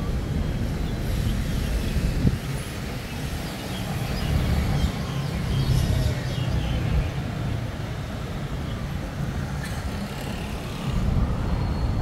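City road traffic: a steady low rumble of passing cars, buses and scooters that swells and eases, with a brief sharp knock a couple of seconds in.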